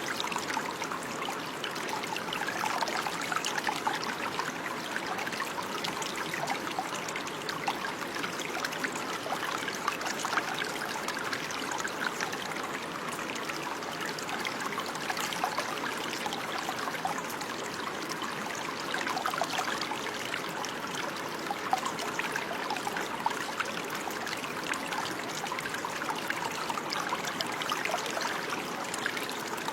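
Running water: a small stream trickling and splashing over stones, steady with many small splashes.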